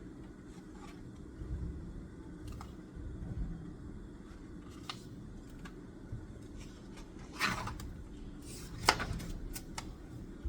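Small handling sounds at a study desk over a steady low room rumble: scattered light clicks, a short rustle about seven seconds in and a sharp click near nine seconds.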